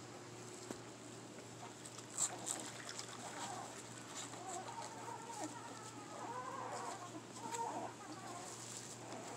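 Pit bull puppies whimpering and whining in short, wavering high cries while being washed, with a few sharp clicks of handling.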